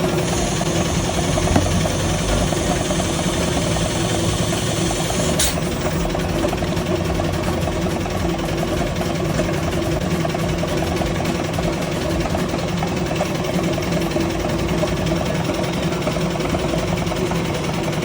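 A machine motor running steadily with an even hum. A high whine rides over it for about the first five seconds and stops with a sharp click.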